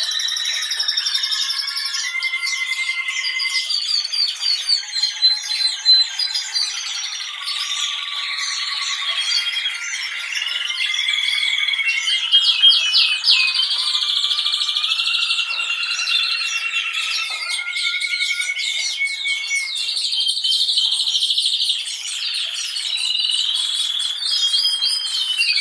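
Several domestic canaries singing together: overlapping rapid trills, rolled notes and held whistles with no break.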